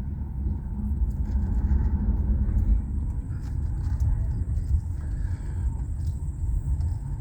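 Steady low rumble of a car's engine and road noise heard from inside the cabin of a slowly moving car.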